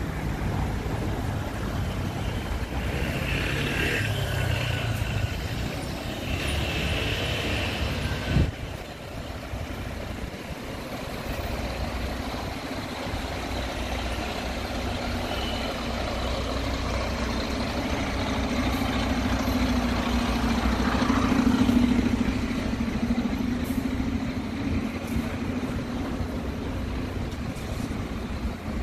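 Town-centre road traffic: cars and double-decker buses running past in a steady rumble. A sharp knock comes about eight seconds in, and a heavy engine drone swells and fades about two-thirds of the way through.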